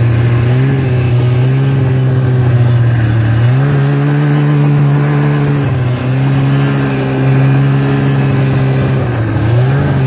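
Snowmobile engine running steadily under throttle, its note stepping up about a third of the way in, then dipping briefly twice as the throttle is eased and picked up again.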